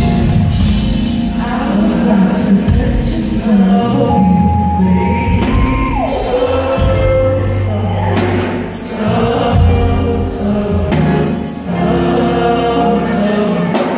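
Live neo-soul band playing on stage: a woman singing into a microphone, holding long notes, over bass and drums.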